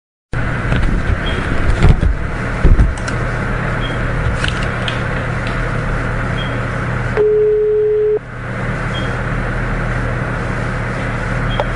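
Telephone line hiss and hum, with a few clicks about two seconds in. Near the middle comes a single one-second ringback tone at about 425 Hz: the dialled phone ringing at the other end.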